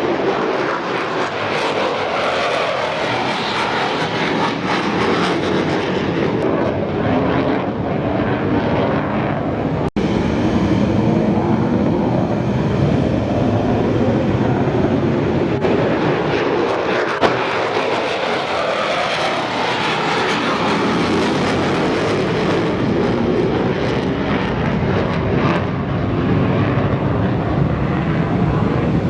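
Mitsubishi F-2 fighter's single F110 turbofan at takeoff power: a loud, continuous jet roar whose pitch sweeps up and down as the aircraft moves past. There is a momentary break about ten seconds in.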